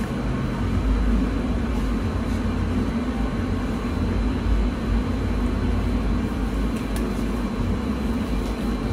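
Steady low rumble of commercial kitchen equipment running, with a faint high hum above it.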